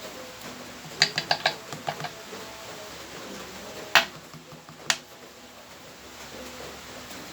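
Small metal engine parts and hand tools clinking on a workbench: a quick run of light metallic clicks about a second in, then two sharper single clinks about a second apart.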